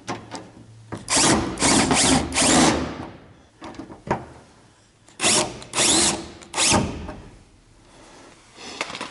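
Cordless drill/driver running in several short bursts as it drives screws through an aluminum plate into the aircraft's sheet-metal cowling.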